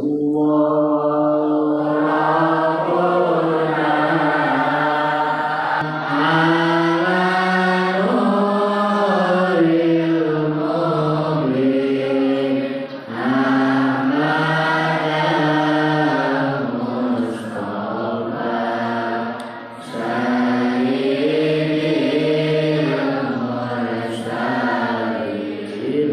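Islamic devotional chanting by a man's voice into a microphone, sung in long, held melodic phrases with short breaks between them.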